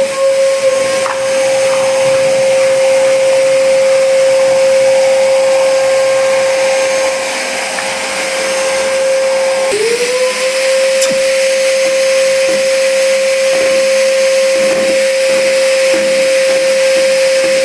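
Trumax MX0120 wet/dry vacuum cleaner running steadily, a high motor whine over rushing air. About ten seconds in, the motor's pitch dips briefly and climbs back.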